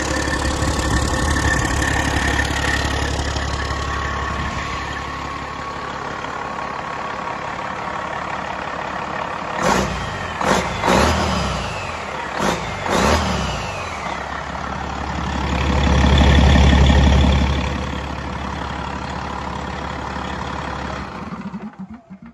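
Detroit Series 60 12.7-litre inline-six turbo diesel running on an engine test stand. Its speed rises and falls in several quick blips about ten to thirteen seconds in. It then swells louder for a second or two before settling back to a steady run, and the sound drops away near the end.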